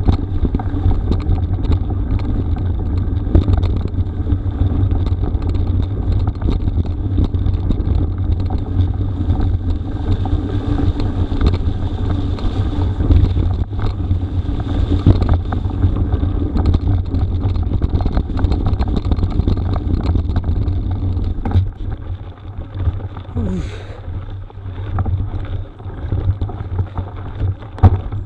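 Mountain bike riding a rough gravel forest road: wind buffets the microphone, the tyres rumble over the surface, and frequent rattles and knocks come from the bike. It gets quieter and more uneven about three-quarters of the way through.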